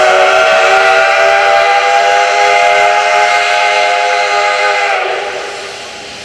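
C62 steam locomotive's whistle blown wide open: a chord of several steady tones that sags in pitch and dies away about five seconds in. Throughout, there is a steady hiss of steam from the open cylinder drain cocks.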